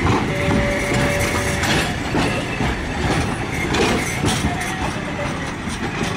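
Toyama city streetcar passing close by, its steel wheels rumbling and clacking over the street track. A steady whine sounds for about a second near the start.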